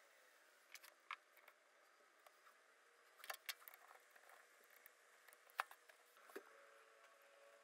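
Near silence broken by a few faint, separate clicks and taps from handling a rear brake caliper and its parking brake motor on a workbench.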